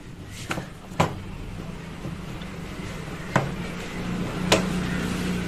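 A few sharp knocks and clicks of plastic and metal washing-machine parts being handled and pried apart during disassembly, over a steady low hum.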